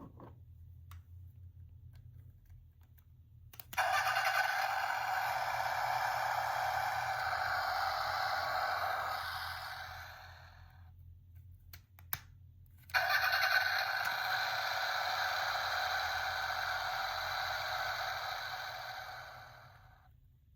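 A small gachapon car-sound toy playing a recorded car engine sound through its tiny speaker twice. Each play starts abruptly after a small click, runs about six seconds and fades out, thin and without low end.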